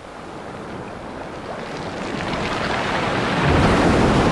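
Sea wave surging in and breaking over a wading angler, the rush of water growing steadily louder and heavier over the last couple of seconds.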